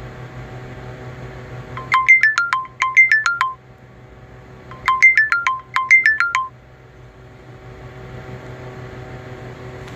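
TCL A1 (A501DL) phone ringtone: electronic beeping notes in quick runs that step downward in pitch, two runs per burst, with the burst sounding twice about three seconds apart.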